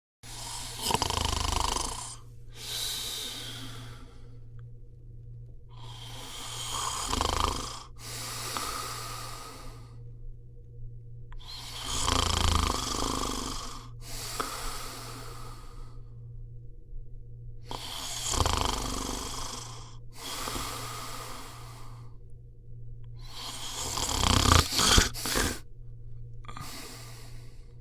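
A person snoring steadily in slow breaths about six seconds apart. Each breath is a loud rasping snore followed by a softer, airy breath, and the snore about 24 seconds in is the loudest.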